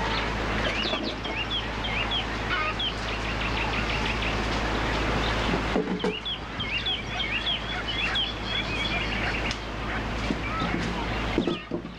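Rural outdoor ambience of many birds chirping in quick repeated calls, with chickens clucking, over a steady background hiss. The sound breaks off sharply and resumes about six seconds in.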